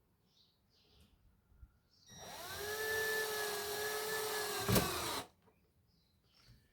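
Power drill-driver spinning up and running steadily for about three seconds as it drives a screw into the landing net's frame, with a sharp click shortly before it stops.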